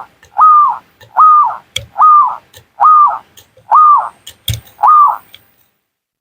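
Zebra dove (perkutut) cooing: a run of six short, whistle-like arched notes, evenly spaced, that stops about five and a half seconds in. Faint clicks fall between the notes.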